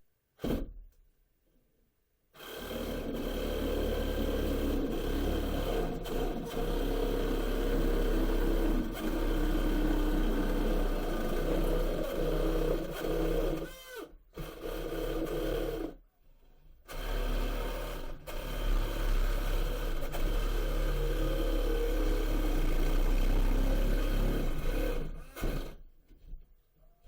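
Handheld power tool running and cutting into drywall (sheetrock) to open a cabinet hole in the wall. It runs in long stretches, stops briefly twice about halfway through, and cuts off near the end.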